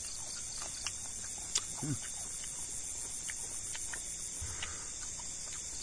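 Night chorus of crickets, a steady high-pitched trilling, with a few faint clicks and a brief murmur from a person about two seconds in.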